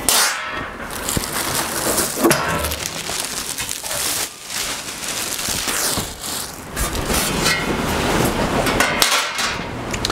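Packing material rustling and scraping as it is pulled out of a cardboard box and dropped into a trash can, with a few light knocks.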